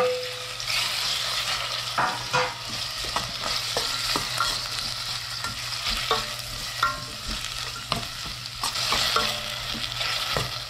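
Tomatoes, ginger, garlic and onion sautéing in hot oil: a steady sizzle, with irregular clicks and scrapes as the mixture is stirred in the pan.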